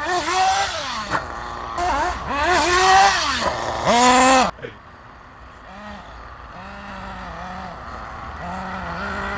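RC buggy's motor revving in three bursts, its pitch rising and falling, cutting off abruptly about four and a half seconds in; after that a fainter, lower engine note wavers on.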